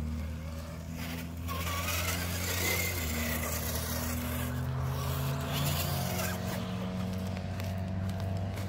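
RC4WD TF2 scale crawler's electric motor and gear drive whining as the truck drives over wet dirt, the pitch stepping up and down with the throttle. For a couple of seconds near the start there is a hissy scraping under it.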